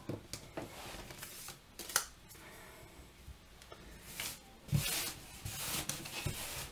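Tarot cards sliding and rustling against one another and the tabletop as a spread is gathered into a stack. There are light clicks and taps throughout, with a sharper click about two seconds in.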